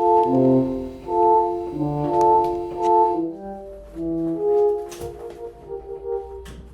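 Synthesized keyboard chords playing a progression, several notes held together and changing about every half second. They are loud for the first three seconds, then a softer, lower passage follows.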